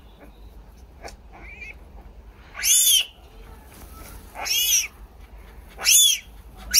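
Very young lynx kitten crying: three loud, high-pitched calls, each rising then falling, about a second and a half apart, with a fourth starting right at the end.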